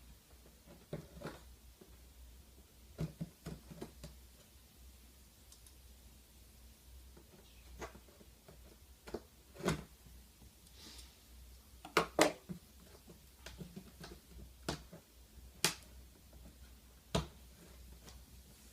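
A cardboard box and its packaging being handled during an unboxing: scattered light clicks, taps and knocks, with a sharper close pair of knocks about twelve seconds in.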